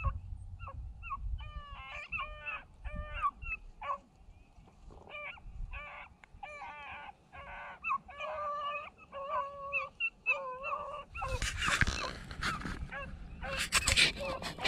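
A pack of beagles giving tongue in short repeated yelping calls, as hounds do while running a rabbit. Near the end, dry grass rustles loudly against the microphone twice.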